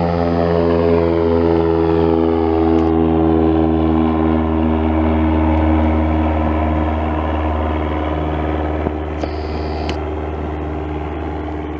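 Small single-engine floatplane's piston engine and propeller at full power, climbing away after takeoff; the steady drone slowly drops in pitch as the plane passes and grows a little fainter.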